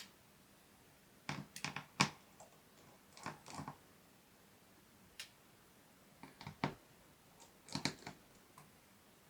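Light clicks and taps from small repair tools and tiny screws being handled during laptop disassembly. They come in four short clusters of a few clicks each, with faint background hiss between them.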